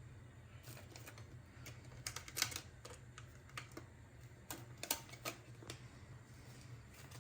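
A series of light, irregular clicks and taps, about a dozen, bunched around two seconds in and again a little past the middle, over a steady low hum.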